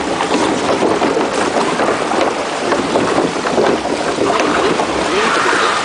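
Water rushing and churning along a log flume channel around the moving ride boat, a loud, steady splashing.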